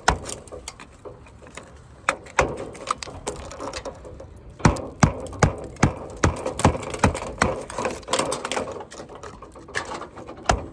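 Hammer striking a chisel held against a brick wall, chipping out mortar: a run of sharp knocks, a few scattered blows at first, then quicker, about three a second from about halfway through.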